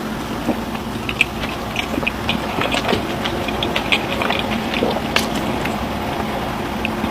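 Close-up eating sounds: chewing, with irregular crisp clicks and small crunches, most of them in the middle of the stretch, over a steady background hum.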